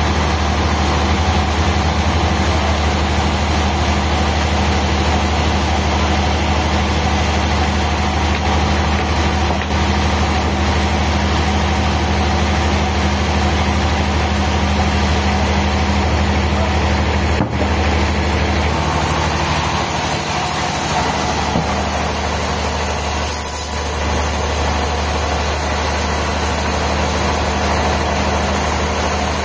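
A heavy engine running steadily at a low, even speed. A short click comes a little past halfway, and the engine's note shifts soon after.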